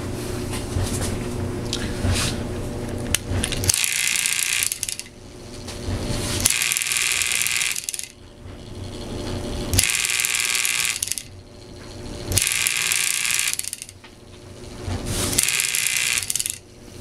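Small electric motors and gear mechanism of a homemade kinetic sculpture running: a steady hum at first, then from about four seconds in a harsh mechanical buzz that comes in about every three seconds, five times, each lasting about a second and cutting off sharply as the mechanism cycles.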